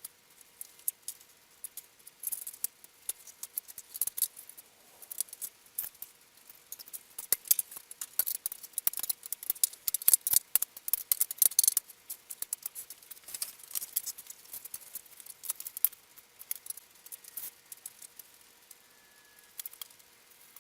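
Light, irregular clicking and clattering of small objects being picked up and set down while a work table is cleared, coming in dense clusters and thinning out near the end.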